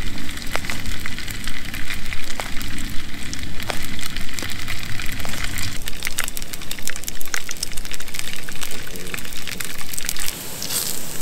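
Sausages sizzling in a frying pan over a gas camping stove, with scattered crackling pops over the steady rushing hiss of the burner.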